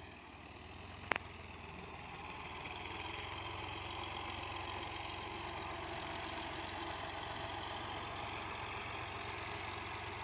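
Farm tractor's diesel engine running steadily and faintly while pulling a tine cultivator through the field. There is a single sharp click about a second in.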